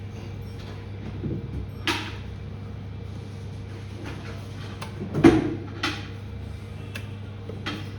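A few separate clicks and knocks of small objects being handled and set down on a repair bench, the loudest about five seconds in, over a steady low hum.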